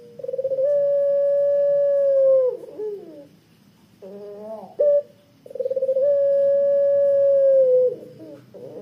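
Puter pelung, a domestic barbary dove bred for its long coo, cooing: two long, thick 'kwook' coos. Each is held about two seconds on one steady note and then drops away. The second coo, about halfway through, is led in by a few short rising notes.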